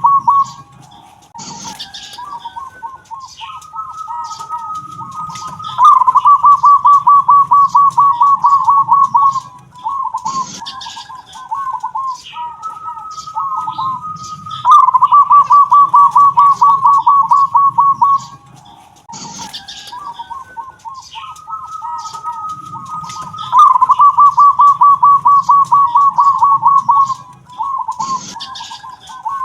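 Zebra dove (perkutut) with the 'kung' voice, cooing. It sings phrases of rapid repeated notes that come round about every nine seconds, each cycle with a louder, fast run of coos lasting a few seconds. Faint high chirps sound in the background.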